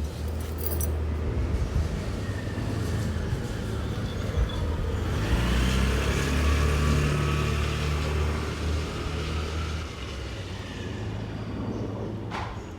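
A motor vehicle's engine running steadily, growing louder for a few seconds about halfway through as if passing close, then easing off.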